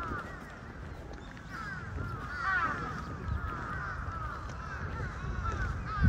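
A flock of birds calling, many short falling calls overlapping one another, over a low background rumble; a single thump near the end.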